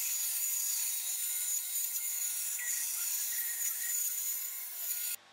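Bandsaw ripping a thin slice off a wooden block: a steady hiss of the blade cutting wood over a high, even whine from the saw, which cuts off suddenly near the end.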